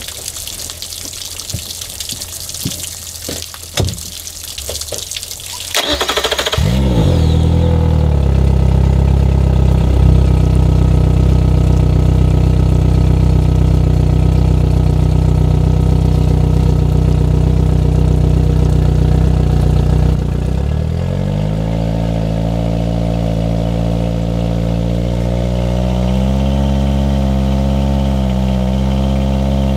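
Water hissing from the flush hose feeding the outboard. About six seconds in, a Yamaha F70 four-stroke outboard's four-cylinder engine cranks briefly and starts, then runs steadily on the freshwater flush. About twenty seconds in its speed and level drop a little and it settles into a lower idle.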